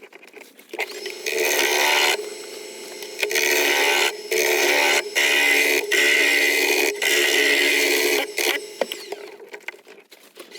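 Wood lathe spinning a laburnum blank while a gouge cuts into it, roughing it round: a steady motor hum under a loud scraping cut that comes and goes in stretches of about a second, easing off near the end.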